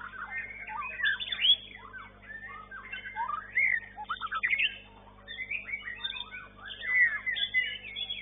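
White-rumped shama (murai batu) singing: a fast, varied run of loud whistles, slurred notes and quick trills, with a brief lull about halfway through.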